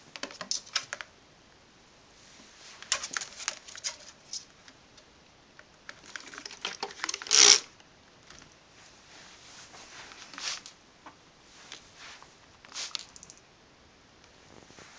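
Plastic trigger spray bottle squirting water in quick clusters of short sprays, a few seconds apart, with one longer, louder spray about halfway through.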